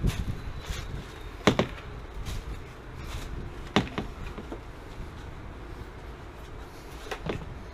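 Scattered sharp knocks and bumps as a water heater is handled and shifted into place: four or five distinct impacts, the loudest about one and a half seconds in, and a close pair near the end.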